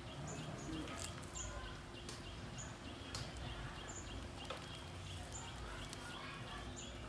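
Birds chirping: a short, high, falling call repeats about once a second over a faster, softer chirping. A few sharp clicks stand out about a second, three seconds and four and a half seconds in.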